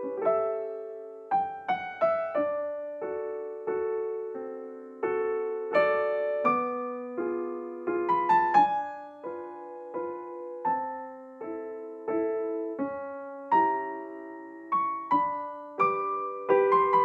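Background piano music: a melody of single struck notes and chords, each fading away before the next is played.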